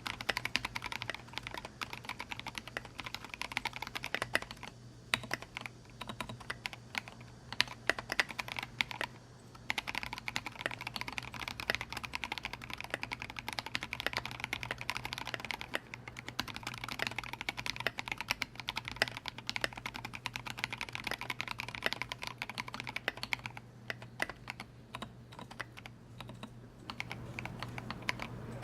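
Fast, continuous typing on a Duck Orion V2 custom mechanical keyboard with vintage Cherry MX Black linear switches (58 g) on an aluminium plate, capped with SA-profile keycaps. It is a dense, uneven run of key clacks with a few brief pauses.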